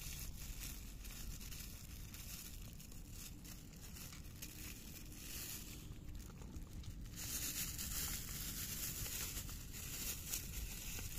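Two cats eating wet cat food from a bowl close to the microphone: a steady run of small wet chewing and smacking clicks, a little louder near the end.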